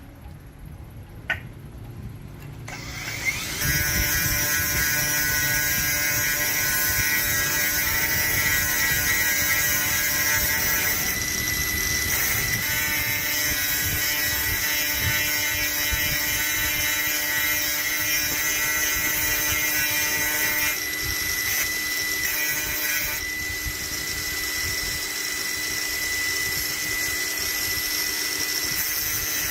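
An electric power tool starts about three seconds in and runs steadily, a whine with several held tones over a hiss, shifting slightly twice.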